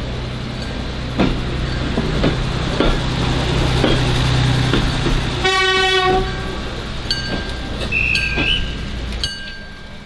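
Uerdinger railbus's underfloor diesel engine idling with a steady low drone and a few knocks, cut through about halfway by one short train horn blast.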